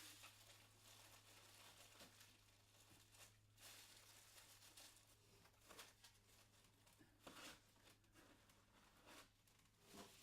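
Faint rustling and tearing of packaging being pulled off statue parts, in a few short, scattered bursts over a steady low hum.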